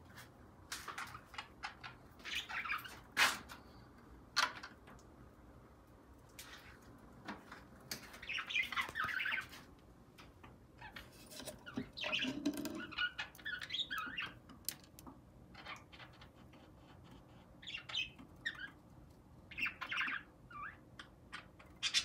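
Budgerigars chattering and squawking in short scattered bursts, with a couple of sharp clicks about three and four and a half seconds in.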